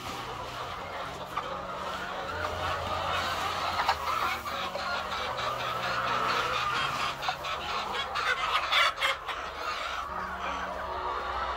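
White laying hens clucking, over the rustling hiss of dry husk bedding poured out of a woven plastic sack, with a spell of crackly rustling in the middle as the sack and husks are shaken out.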